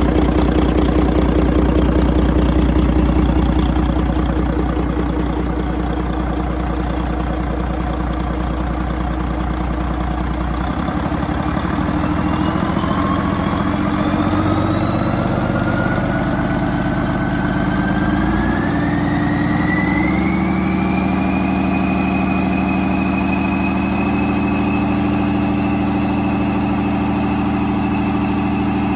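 Volvo D12 12.1-litre inline-six diesel engine running on a stand. It idles, then about a third of the way through it speeds up gradually, with a high whine climbing alongside, and holds at a steady higher speed.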